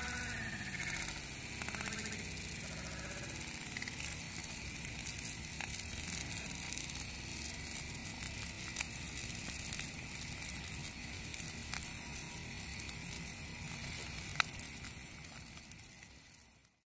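Bonfire burning: a steady rushing noise with sharp crackling pops now and then, the loudest about three-quarters of the way through. The sound fades out just before the end.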